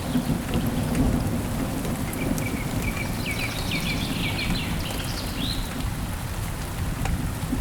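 Steady heavy rain with a low rumble of thunder underneath. About two seconds in, a bird calls a quick series of short, falling chirps that ends with a single upward note some three seconds later.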